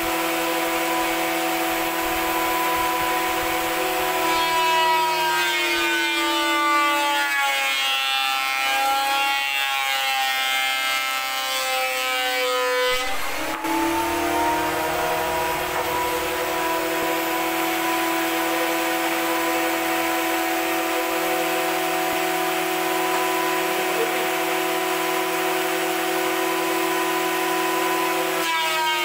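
An electric motor running with a steady whine. Its pitch slowly falls from about five seconds in, snaps back up at about thirteen seconds, and drops again at the end, with a rough hissing texture while the pitch is low.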